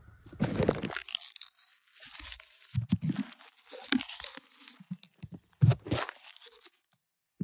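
Footsteps crunching on a gravel floor, in irregular bursts, mixed with rustling from the handheld phone; the sound cuts out suddenly near the end.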